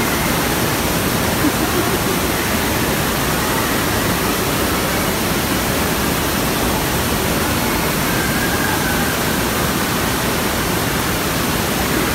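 Steady, loud rush of water pouring out of a raft water slide into its splash-down pool.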